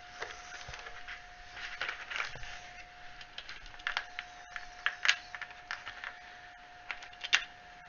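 Light clicks and taps of small hard cast pieces being picked up and set down on a cutting mat, at irregular intervals, over a faint steady high hum.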